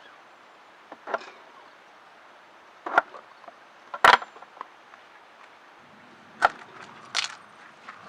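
A few sharp knocks and clatters at irregular intervals, like wood or camp gear being handled or struck, with the loudest about four seconds in.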